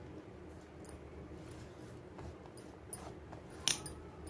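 Soft, faint handling sounds of a hand pressing grated bottle gourd into a bowl of ice water and gathering the leftover shreds off a tray, with scattered light clicks and one sharper click about three and a half seconds in.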